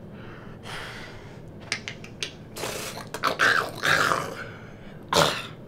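A person's voice making animal-like growls and grunts in place of words, in several breathy bursts. The loudest stretch comes a little past halfway, and a short sharp one comes near the end.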